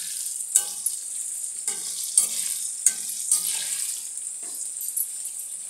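Green chillies sizzling in hot oil in a metal kadhai, with a spatula scraping against the pan in irregular strokes as they are stirred to cook evenly; the last scrape comes about a second before the end.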